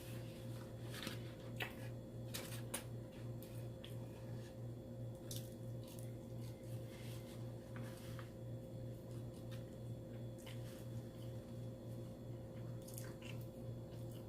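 Close-up chewing and wet mouth smacks of someone eating, in scattered short clicks, with a steady low electrical hum underneath.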